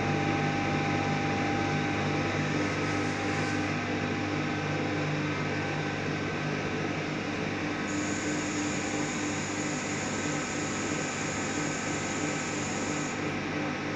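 1512F3 CNC vertical turret lathe running with its faceplate table turning: a steady mechanical hum with several constant whining tones. A thin high whine joins in for a few seconds in the second half.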